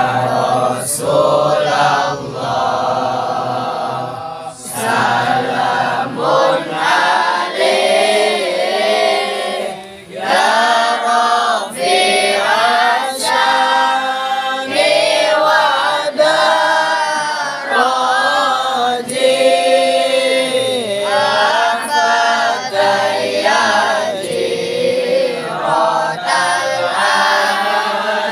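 A group of men and boys chanting together in unison, an Islamic devotional recitation sung in phrases of held, wavering notes that pause briefly every second or two.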